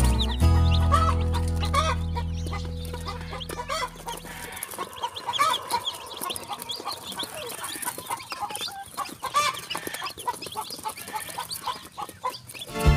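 Newly hatched chicks peeping in a brooder, a constant chorus of short, high cheeps. Background music fades out over the first few seconds, and music comes back in right at the end.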